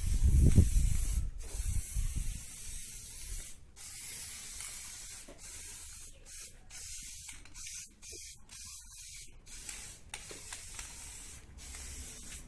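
Aerosol can of automotive spray paint hissing as it sprays, in spurts broken by a dozen or so brief pauses as the nozzle is let go. A low rumble sits under the first two seconds.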